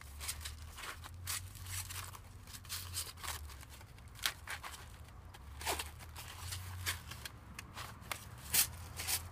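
Thin titanium stove panels being slid into a fabric stuff sack and the sack folded closed: fabric rustling and light scraping of the metal plates, with a few sharp clicks at irregular intervals.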